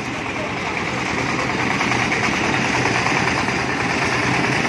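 Single-cylinder diesel engine of a công nông farm truck running with a steady, rapid chugging, growing a little louder over the first couple of seconds and then holding steady.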